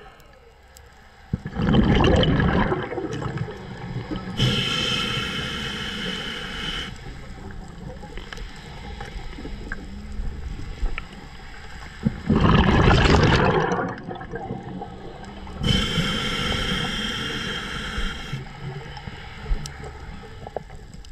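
Scuba diver breathing through a regulator, heard underwater: two loud gushes of exhaled bubbles, about a second and a half in and again around twelve seconds, each followed a couple of seconds later by a hissing inhalation lasting about two and a half seconds.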